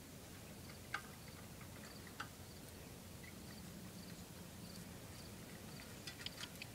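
Faint field ambience: an insect chirps in a steady rhythm of short, high pulses, over a low background rumble. A few faint clicks sound, with a small cluster of them near the end.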